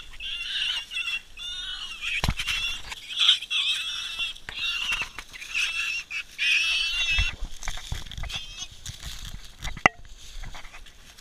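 A feral pig squealing over and over in high, wavering cries as hunting dogs catch it, the squeals dying away about two-thirds of the way through. Two sharp knocks, the loudest near the end.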